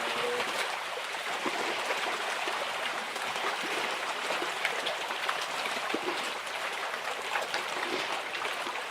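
Steady running, trickling water with small splashes and drips scattered through it.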